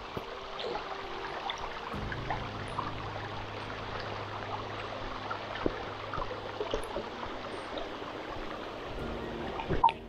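Water running and trickling steadily along a narrow stone channel, with scattered small ticks and a sharp knock just before the end.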